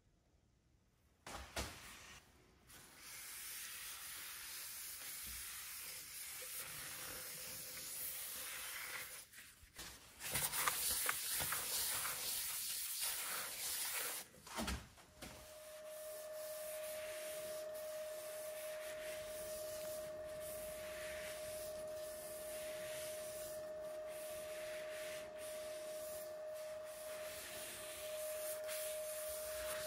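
Paper towel rubbing over a hawthorn burl and epoxy resin vase on a wood lathe, wiping on a finish, with a single knock about a second and a half in. From about halfway a steady hum joins it, the lathe running.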